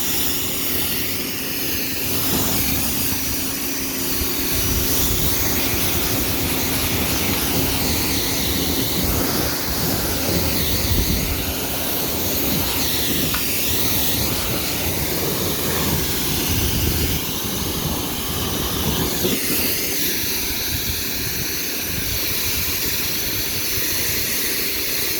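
Harbor Freight Portland pressure washer running while its high-pressure jet sprays water onto a car: a loud, steady hiss of spray over a low, even hum.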